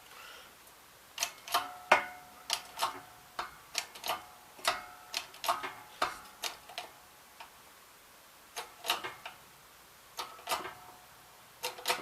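Irregular sharp metallic clicks and ticks, a few with a short ringing tone, from steel being forced while a bent clamp-on pallet fork is straightened.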